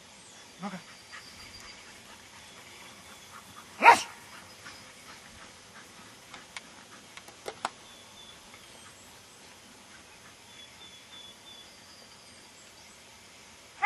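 A dog barks once, sharply, about four seconds in. A softer, shorter dog sound comes just before that, under a second in.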